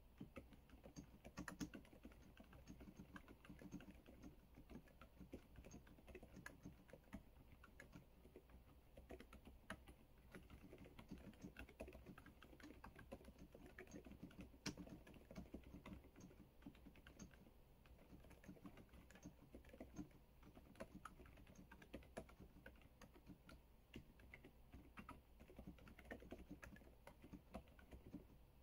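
Typing on an EPOMAKER DynaTab 75x mechanical keyboard: a steady, uneven stream of key clicks, several strokes a second.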